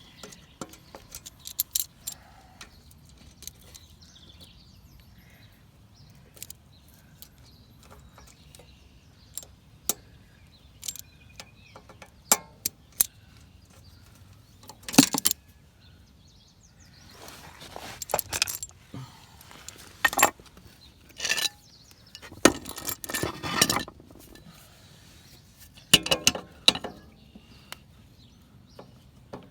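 Metal hand tools clinking and tapping on a motorcycle's rear axle hardware as the cotter pin is worked: irregular short clicks and clinks, with louder bunches of clatter in the second half.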